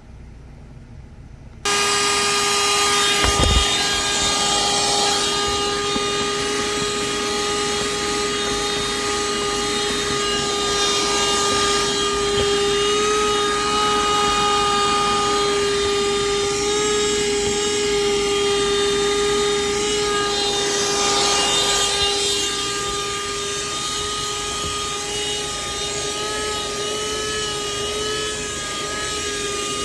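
Krisbow corded handheld car vacuum cleaner switched on about two seconds in, then running steadily with a motor whine whose pitch wavers slightly now and then. A short bump comes shortly after it starts.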